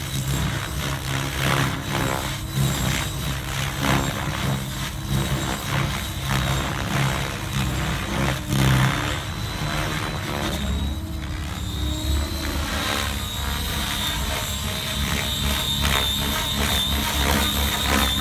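Align T-Rex 700X radio-controlled helicopter in flight with its head speed at 2100 rpm: a low rotor drone with flutter from the blades and a high, steady whine from the drivetrain. The whine and the low drone grow stronger in the second half.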